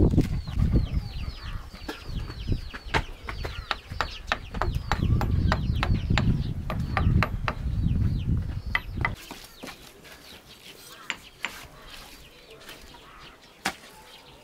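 Chickens calling: rapid short high peeps, each falling in pitch, several a second, over a low rumble, thinning out about nine seconds in to a few scattered clicks.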